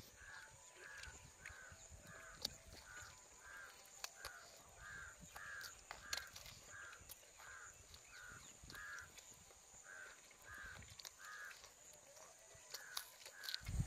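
Faint bird calling over and over, short harsh calls about two a second, pausing briefly near the end, with a few scattered clicks.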